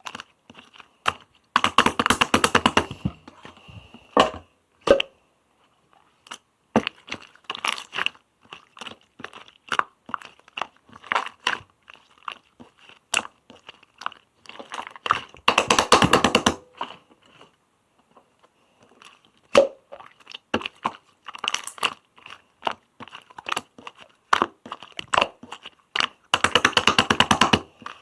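Clear slime being squished and poked by hand, making sticky popping and clicking sounds. Three runs of rapid crackling come about two seconds in, around the middle and near the end.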